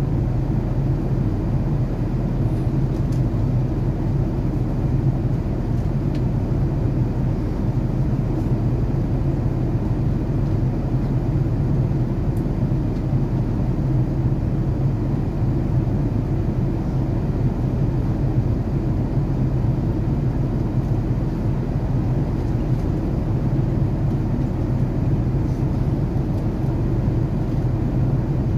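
Steady low rumble of airliner cabin noise on an Airbus A380 in cruise, engine and airflow noise heard from inside the cabin.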